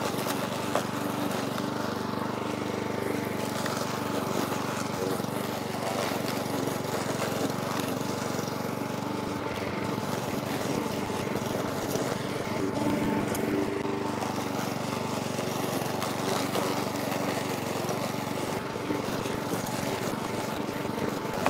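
Parkside PBM 132 B1 petrol lawn mower's 132 cc four-stroke engine running steadily under load while cutting grass.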